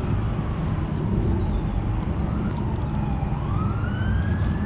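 Emergency vehicle siren wailing, its pitch sinking slowly and then climbing again about three seconds in, over a steady low traffic rumble.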